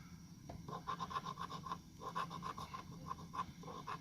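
Scratch-off lottery ticket being scratched in quick, repeated rasping strokes, several a second, with a brief pause about two seconds in.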